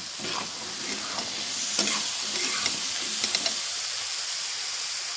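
Rice, potato chunks and green peas sizzling in hot oil in a metal kadhai while a metal spatula stirs them, scraping and clicking against the pan. The stirring stops a little past halfway and the steady sizzle carries on.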